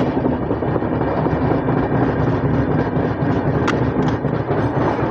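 Indian Railways passenger coach rolling along a station platform, heard from its open door: steady wheel-on-rail running noise with wind buffeting the microphone, and one sharp click about three and a half seconds in.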